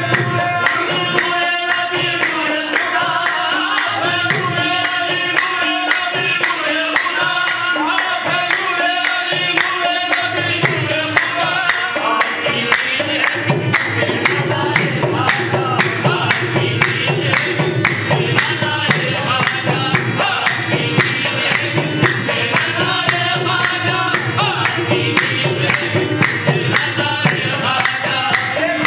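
Qawwali: a lead singer with harmonium accompaniment, a hand drum keeping a steady beat, and hand claps.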